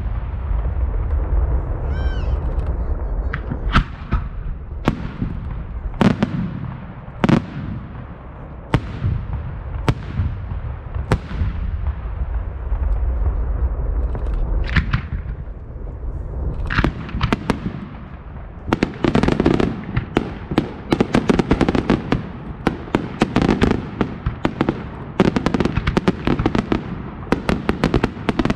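Fireworks exploding: sharp bangs about once a second, each followed by a low rumble, with a short whistle about two seconds in. From about two-thirds of the way through, the bangs come thick and fast as a rapid volley.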